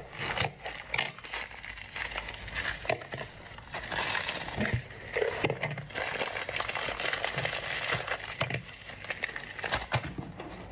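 Crinkling and rustling of a wrapper as a wrapped block is cut open and the wrapping is pulled apart by hand, with many small irregular crackles.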